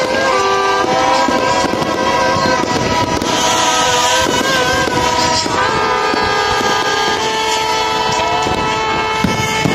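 Fireworks crackling and popping amid a din of many horns blowing at once, their held tones overlapping and some wavering, with a bright hissing burst about three and a half seconds in.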